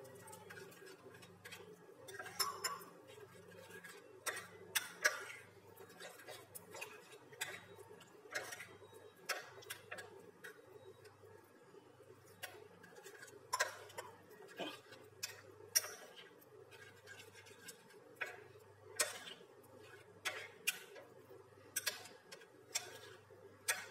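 Metal spoon stirring thick peanut sauce in a ceramic bowl, clinking against the bowl's side in irregular taps about every second or two, over a faint steady hum.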